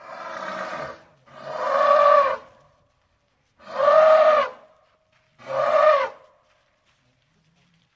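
Elephant trumpeting: four calls of about a second each, the first quieter, the later three each rising and then falling in pitch.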